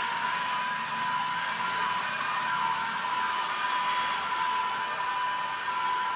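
Alishan Forest Railway Shay steam locomotive No. 21 letting off a steady hiss of steam with a thin, high steady tone.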